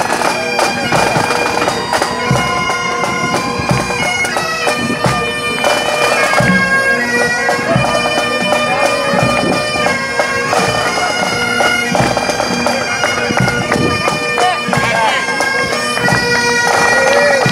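Bagpipes playing a tune over their steady drones.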